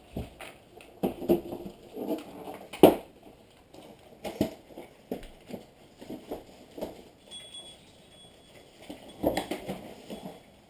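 Irregular knocks, taps and rustling as presents and their boxes and wrapping are handled, with one sharper knock about three seconds in.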